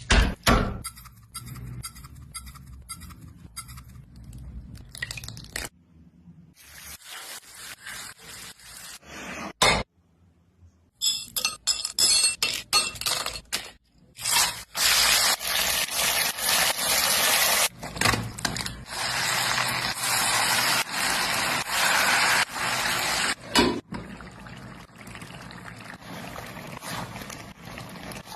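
Cut-together kitchen sounds of cooking chicken curry: utensils clinking and scraping, liquid pouring, and, in the second half, two long stretches of steady hiss.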